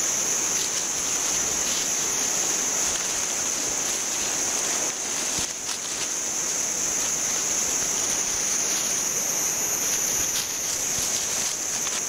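Steady tropical rainforest ambience: a continuous high-pitched insect drone over an even hiss, with a few faint rustles.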